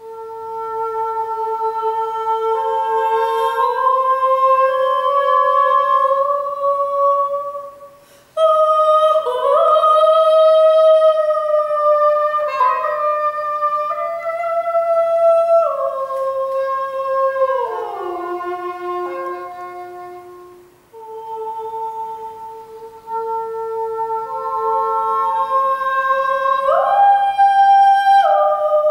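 Soprano voice and English horn in a contemporary duet: long held notes that slide up and down between pitches, the two lines passing back and forth and overlapping. The sound breaks off briefly about a third of the way in and dips again past the middle.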